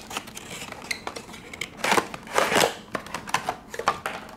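Cardboard box and clear plastic tray being handled: card rustling and scraping as the tray slides out, with light plastic clicks and knocks on a wooden tabletop. Two louder scraping rustles come about two seconds in.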